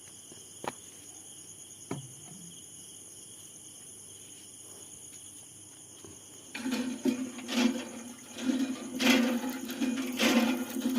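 Crickets chirping steadily, with two faint clicks. About six and a half seconds in, water from a village tap starts gushing loudly, surging about once a second.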